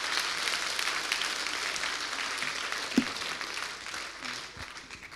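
Audience applause filling a large lecture hall, dying away near the end. A single knock stands out about three seconds in.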